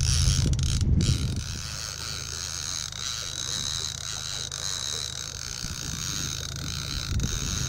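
Fishing reel ticking steadily while a brown trout is being played on a bent rod, with a low steady rumble beneath that is loudest in the first second or so.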